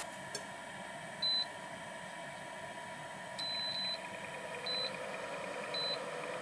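Electronic beeps from a device: one short beep, then a longer beep, then two more short beeps, over a steady hum.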